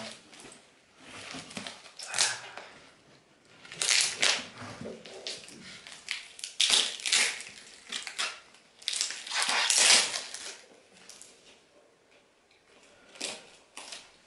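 Crinkling and rustling of a parcel's plastic and tape wrapping as it is handled and picked at by hand, in irregular bursts that are loudest about nine to ten seconds in.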